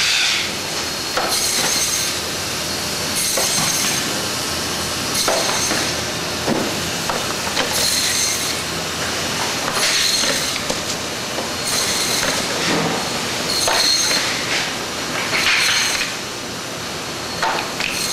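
Automatic band-saw line for frozen blocks running in a repeating cycle: a high-pitched metallic screech with clatter comes about every two seconds over a steady machine noise.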